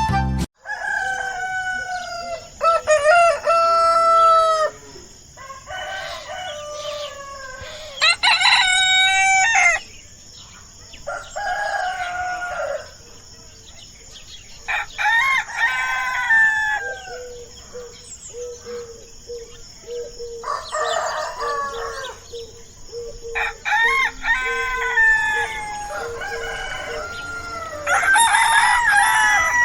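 Rooster crowing repeatedly, about nine cock-a-doodle-doo calls a few seconds apart, with some clucking.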